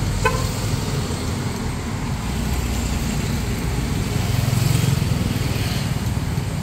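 Street traffic of motorbikes and cars, a steady low rumble that swells about four to five seconds in as a motorbike passes close by.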